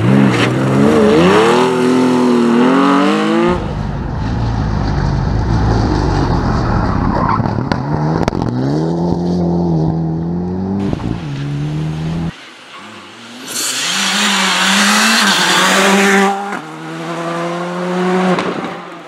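Rally cars driven hard on a special stage, engines revving up and dropping back at each gear change, in several short clips cut together. About two-thirds of the way in, a loud rushing noise rises over the engine for a couple of seconds.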